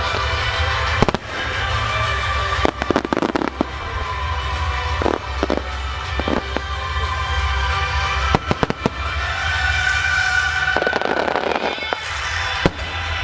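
Fireworks shells bursting with sharp bangs, some single and some in quick clusters, and a stretch of crackling about eleven seconds in, over steady music.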